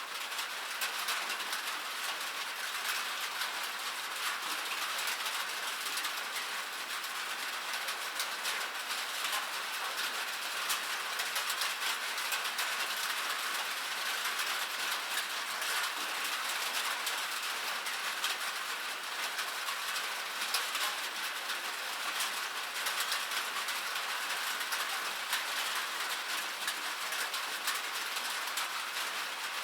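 Steady rain on a metal roof: a dense, even patter of countless small drops ticking on the metal.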